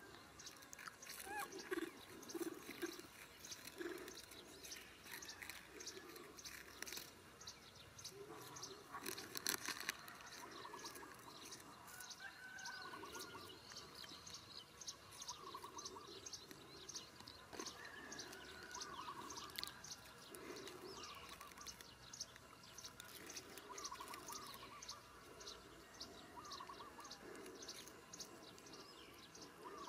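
Cats and a baby monkey chewing food, a steady run of small clicks about two or three a second. Birds chirp briefly a few times in the background.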